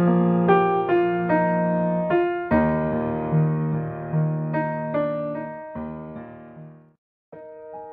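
Gentle piano music, notes struck one after another and left to ring, fading out near the end. After a brief gap of silence a new piano phrase starts.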